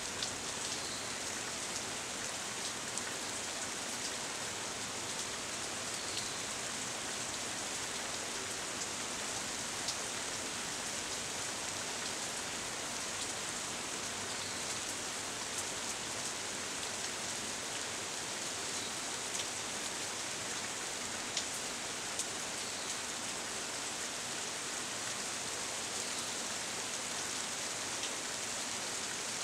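Steady rain shower: an even hiss of falling rain with a few scattered sharper drop hits.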